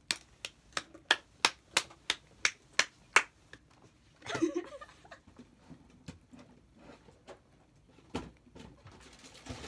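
A person beating out an even rhythm with her hands: about a dozen sharp claps or snaps, three a second, growing louder, over the first three seconds. A short burst of voice follows, then a single sharp tap near the end.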